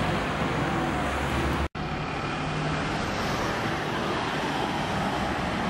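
City street traffic: a steady mix of engine and road noise from cars and a bus moving slowly. The sound drops out for an instant less than two seconds in, at an edit cut, then the traffic noise carries on.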